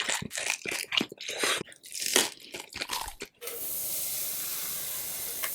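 Close-up bites and chewing of crispy pork belly skin: a quick, irregular run of sharp crunches. About three and a half seconds in, the crunching stops and a steady hiss takes over.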